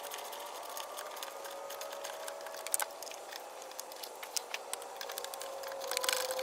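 Ratchet wrench clicking on the starter solenoid's nuts: a few scattered metallic clicks, then from about six seconds in a fast, dense run of ratcheting. A faint steady hum runs underneath.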